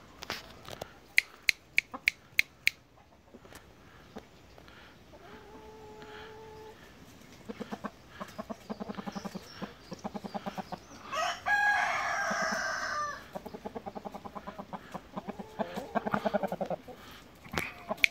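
Shamo chickens clucking in long rapid runs, with a rooster crowing once, loudly for about two seconds, a little past the middle. A few sharp clicks come near the start.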